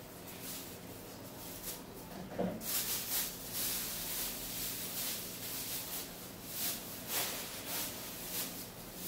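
Pot of chicken broth coming to the boil: a bubbling hiss that starts up a little over two seconds in and keeps rising and falling.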